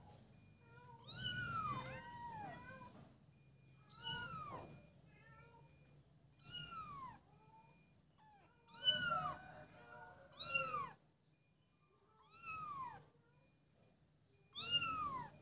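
A young kitten meowing repeatedly: about seven high calls, roughly two seconds apart, each rising and then falling in pitch.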